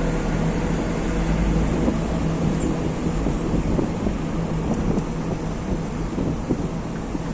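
Steady noise inside a jet airliner's cabin: engines and airflow running with a deep rumble and a constant low hum.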